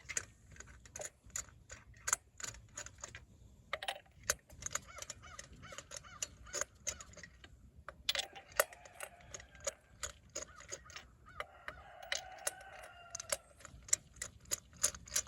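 Ratchet wrench clicking in quick, uneven runs as it turns the engine's crankshaft by hand to find top dead center. A few drawn-out animal calls are in the background.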